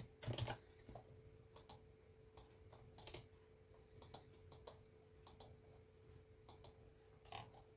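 Faint, scattered clicks of a computer keyboard and mouse, a dozen or so at irregular intervals, with a louder pair just after the start. A faint steady hum runs underneath.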